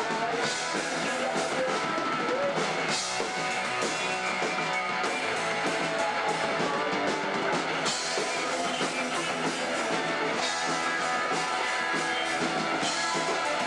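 Hardcore punk band playing live in rehearsal: distorted electric guitars over a drum kit, with steady hits throughout.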